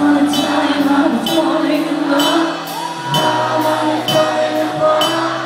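Live rock band playing a power ballad: held electric guitar and keyboard notes over a slow beat, with a drum and cymbal hit about once a second.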